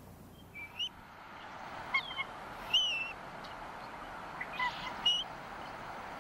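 Bald eagle calling: a series of short, high, squeaky chirps that bend in pitch, over a soft steady hiss.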